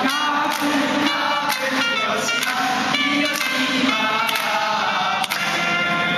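A group of young men singing together, with hand claps in time.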